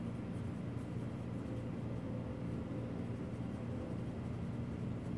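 Steady low electrical hum of room tone, with faint pencil scratching on paper as small loops are drawn.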